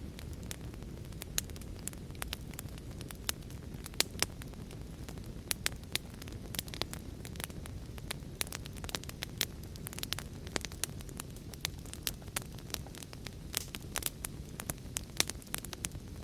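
Wood fire burning, with irregular sharp crackles and pops over the steady low rumble of the flames.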